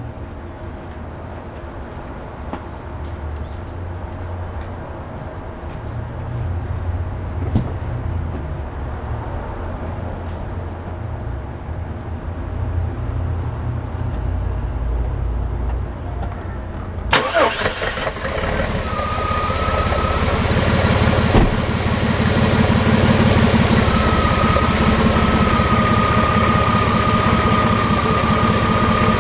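Low rumble and small knocks, then about 17 seconds in a GM 4.3L Vortec V6 cranks briefly and catches. It settles into a steady idle with a thin high whine over it, running fine with the freshly cleaned EGR valve in place.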